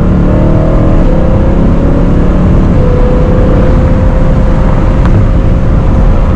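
BMW E92 M3's V8 heard from inside the cabin while cruising, fitted with an Eventuri carbon plenum intake and an Akrapovič exhaust: a steady engine drone over road noise, its pitch climbing slightly in the first second and then holding level.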